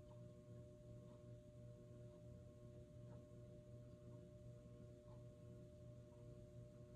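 Near silence: a faint steady electrical hum with a few thin steady tones above it.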